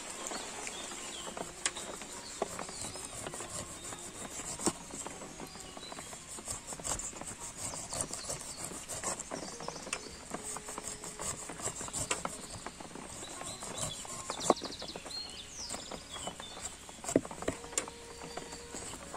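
A large knife slicing the rind off a fresh pineapple on a wooden chopping board: irregular crunchy cuts and sharp knocks of the blade against the board, over a steady high hiss.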